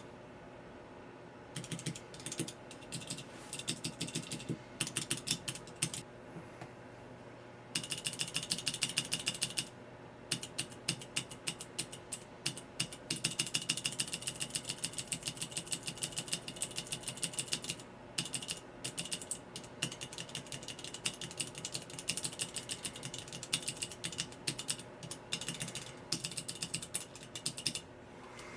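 Cherry MX mechanical keyboard switches on a switch tester pressed over and over, runs of quick clacks a few seconds long with short pauses between them.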